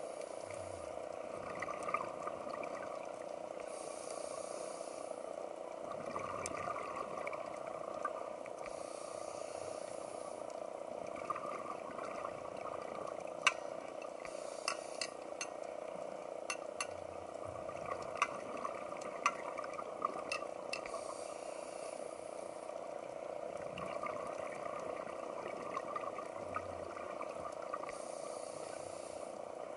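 Underwater ambience: a steady hiss scattered with sharp clicks, most of them in the middle of the stretch, and a brief burst of higher hiss every five or six seconds.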